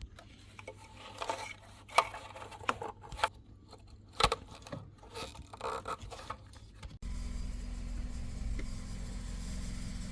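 A run of clicks, light knocks and scraping, as of parts being handled. About seven seconds in it cuts abruptly to the Audi A3's engine idling with a steady low rumble.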